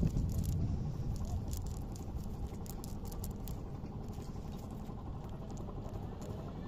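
Hands working through a wet cast net and water weeds to free fish: scattered light rustles and clicks over a steady low rumble.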